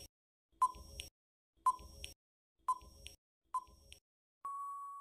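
Quiz countdown timer sound effect: four short ticking beeps about a second apart, then one longer steady beep near the end.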